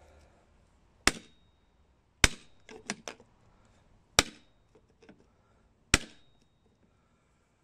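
A mallet striking the top of a PVC pipe used as a driver, four hard blows one to two seconds apart with a few lighter knocks between, tapping a new Timken carrier bearing down onto a Ford F350 driveshaft.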